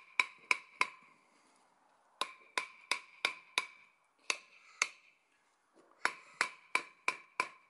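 Hammer tapping on an old cast-iron brake rotor laid across a new one, driving the new rotor down flush with the locking hub. The light taps come in three short runs, about three a second with pauses between, and each tap leaves a brief metallic ring.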